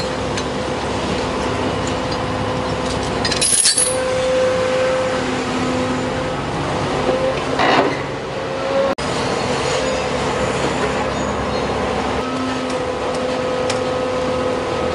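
Large tracked excavator running, its engine and hydraulics giving a steady hum that swells and eases, with brief sharp metallic clinks twice in the first half.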